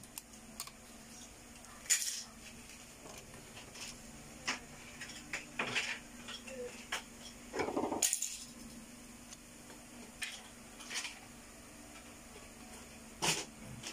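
Scattered light metallic clicks and taps as a soldering iron is worked on a TV circuit board, desoldering a pair of components, over a steady low hum.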